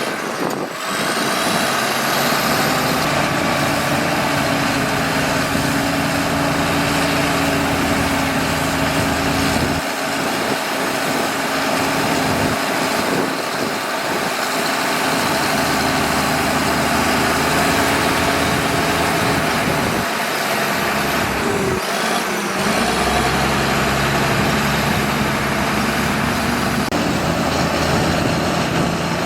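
Bulldozer's diesel engine running steadily under work. Its deep low rumble drops away twice, about a third and two thirds of the way through, then comes back.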